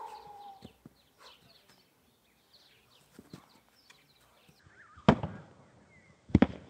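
Foam training sabres striking during sparring: one sharp hit about five seconds in, then a quick double hit just after six seconds.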